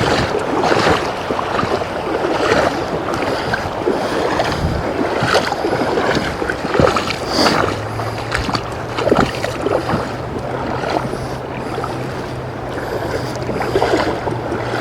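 Legs wading through a shallow creek, water sloshing and splashing with each step at a slow walking pace.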